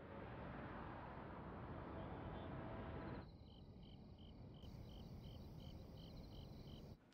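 Faint background hiss, then from about three seconds in a high insect chirping in an even rhythm, about three chirps a second.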